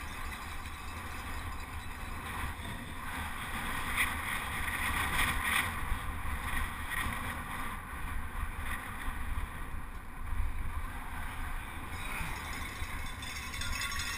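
Wind buffeting a helmet-mounted camera microphone while a penny-farthing is ridden fast on a city street: a steady low rumble with rushing noise, a little louder for a couple of seconds about four seconds in.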